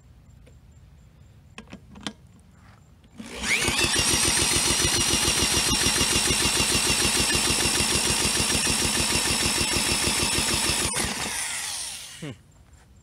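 A power drill on the flywheel nut cranks a Briggs & Stratton Quantum lawnmower engine for about nine seconds. The drill whines up to speed about three seconds in and winds down near the end, with an even rapid pulsing as the engine turns over. It never fires: the owner thinks it ate enough sand that its compression is too low to start. A few light clicks come before it.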